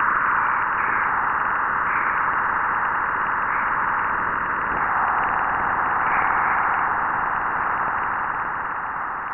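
Sonified plasma-wave data from NASA's Juno spacecraft crossing Jupiter's bow shock, where the supersonic solar wind is slowed and heated by Jupiter's magnetosphere. It is heard as a loud, steady rushing hiss in a mid-pitched band that eases slightly near the end.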